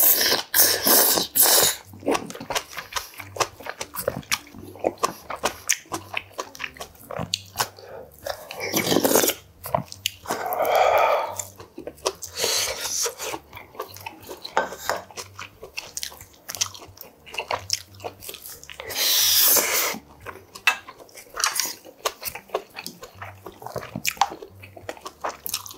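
Close-miked eating: a long wet slurp of yukgaejang (spicy Korean beef soup) off a wooden spoon at the start, and another about two-thirds of the way through. Between them are many short chewing and biting sounds.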